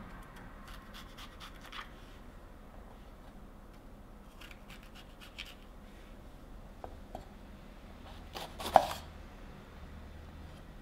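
Kitchen knife cutting through green peppers on a wooden cutting board: a few light, crisp cuts scattered through, and one much louder crunch and knock of the blade on the board near the end.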